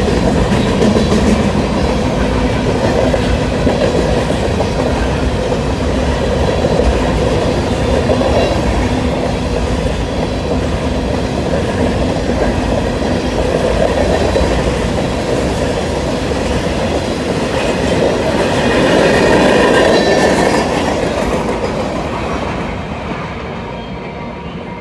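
Freight train's covered hoppers and boxcars rolling past on steel rails, a steady rumble of wheels on track that fades over the last few seconds as the end of the train goes by.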